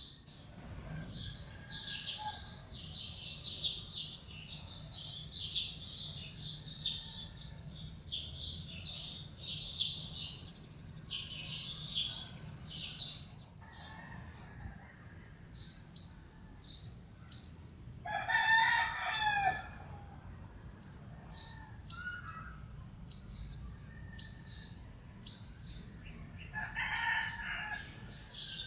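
Lowland white-eyes giving rapid, high, thin chirps, densest through the first half and again at the end. About two-thirds of the way in, one louder, lower call lasting about a second and a half stands out, and a shorter low call follows near the end.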